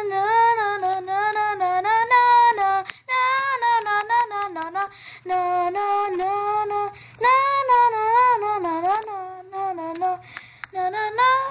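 A child's high voice singing a wordless, wavering tune in long phrases, with a few sharp clicks of plastic toy figures knocking together.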